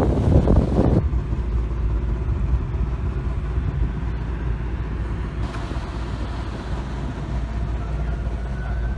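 Moving car: a steady low rumble of engine and road noise.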